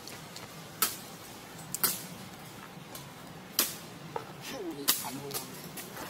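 A few sharp clicks spaced irregularly, about five in all, over a faint steady hiss, with a short wavering call a little before the end.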